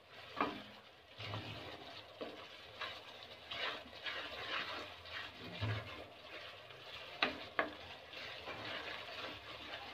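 A spatula stirring and scraping a thick, frying onion-tomato masala in a steel wok, with a light sizzle under the strokes. Two sharp knocks of the spatula on the pan come about three-quarters of the way through.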